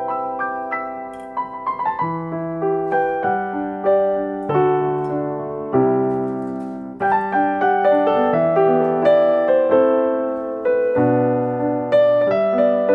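Background piano music: a gentle melody played note by note with sustained chords.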